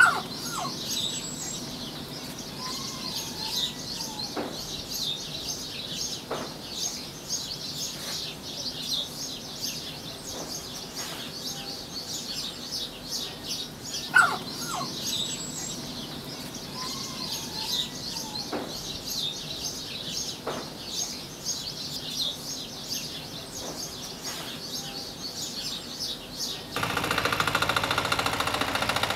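A chorus of small birds chirping continuously, with a few soft knocks and one sharp, louder sound about halfway through. Near the end the birdsong cuts off and a louder, steady noise takes over.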